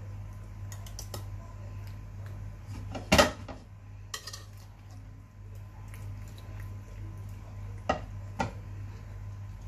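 Wire whisk clinking and scraping against a terracotta baking dish as penne is stirred, over a steady low hum. A sharp clank about three seconds in is the loudest sound, with a lighter one a second later and two more near the end.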